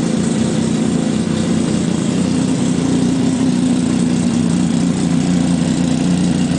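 Yamaha snowmobile engine, converted for a gyroplane and fitted with no propeller, idling steadily just after a cold start without choke.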